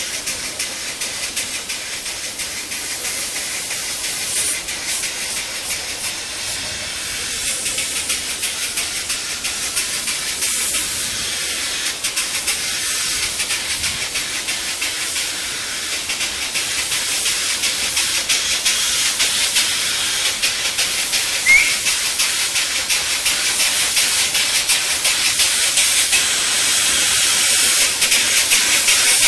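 Miniature narrow-gauge steam locomotive hissing steadily as steam blows from its open cylinder drain cocks while it is being readied for service. The hiss grows louder as the engine creeps closer.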